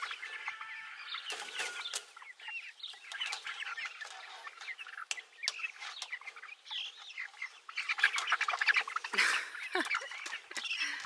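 A flock of brown leghorn hens clucking and squawking over one another, unsettled by a person working inside their coop, with a few sharp knocks among the calls. The calls get loudest near the end.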